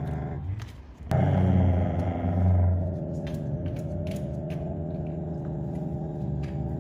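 Siberian husky giving a low, continuous growl: a warning growl in defence of a toilet-paper scrap. The growl breaks off briefly about a second in, is loudest for the next two seconds, then holds steadier until it stops at the very end.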